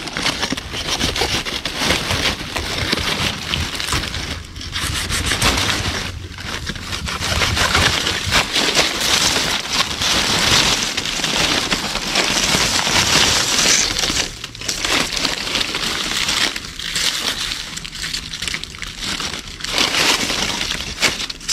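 Dry salak palm fronds and leaf litter crackling and rustling as a bunch of salak (rakam) fruit is cut and pulled free from the spiny palm clump with a blade, with snapping and crunching throughout and a few short lulls.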